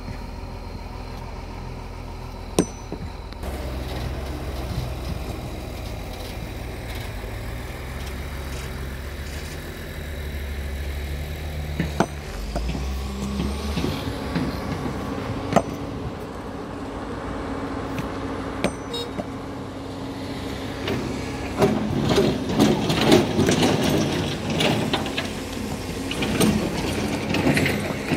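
Excavator's diesel engine running under load, with occasional sharp clanks. In the last third a dense stretch of loud clattering and knocking sets in.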